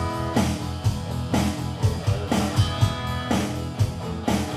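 Live rock band playing an instrumental passage between sung lines: strummed electric guitar chords over bass and drums, with an accent on the beat roughly every second.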